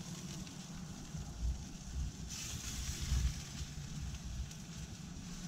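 Gas grill running with a low steady rumble, and a brief sizzle about two seconds in as sauce is brushed onto skewered fish on the hot grate.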